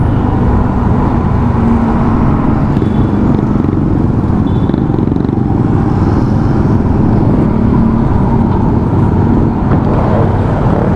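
Motorcycle being ridden along a city highway: steady engine and road noise under a loud, constant rush of wind on the microphone, with other traffic around it.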